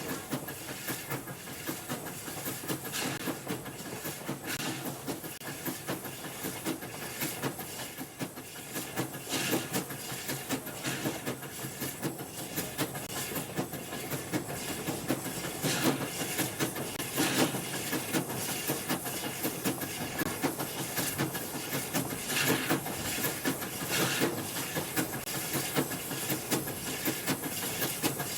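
Steam locomotive brake sound effects: steam hissing continuously, with frequent short clanks and clicks from the wheels and brake gear.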